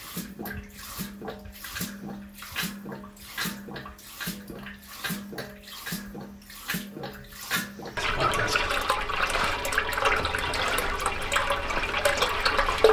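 Hydraulic ram pump running: its waste valve slams shut in a steady beat of about one knock every 0.8 s, each knock trailed by a brief low ring as the water hammer drives water past the delivery valve into the air vessel. About eight seconds in, this gives way to steady splashing of pumped water pouring from the delivery pipe into the concrete reservoir basin.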